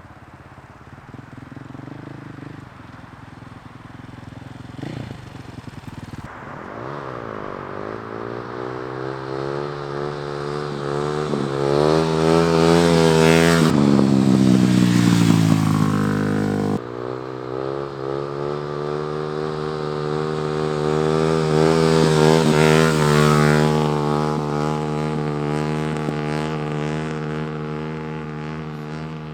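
Dirt bike engine under throttle riding past. It grows louder to a peak about halfway and drops in pitch as it goes by, cuts off abruptly, then swells again and fades near the end.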